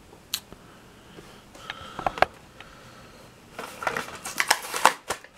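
Handling of a plastic-and-cardboard diecast blister pack: a few light clicks, then over a second of crinkly plastic rustling and clicking near the end.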